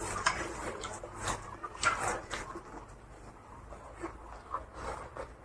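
A hand mixes rice and curry on a food tray, with a scatter of short wet squishing and scraping sounds, the loudest in the first couple of seconds. Near the end, a handful of rice goes into the mouth with chewing and mouth sounds.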